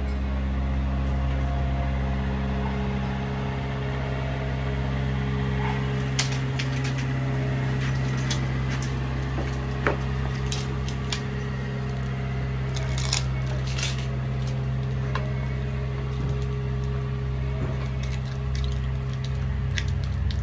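A steady low machine hum, with scattered clicks and knocks from handling equipment.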